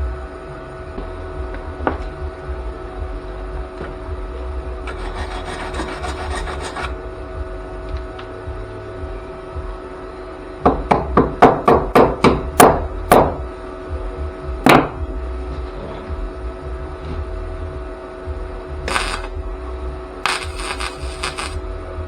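Short bursts of flux-core wire welding crackle on thin body sheet metal, over a steady electrical hum. About halfway through comes a quick run of about eight sharp knocks, the loudest sounds, and one more knock shortly after.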